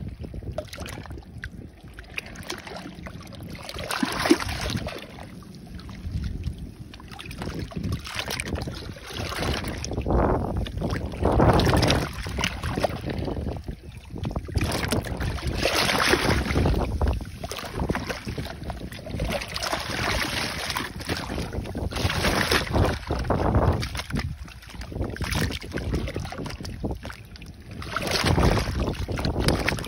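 Seawater washing in and out of a crack between seawall blocks, a rushing sound that swells and falls back every few seconds as each wave surges through.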